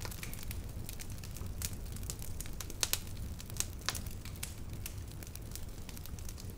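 Small wood fire burning low and crackling, with irregular sharp pops over a steady low rumble.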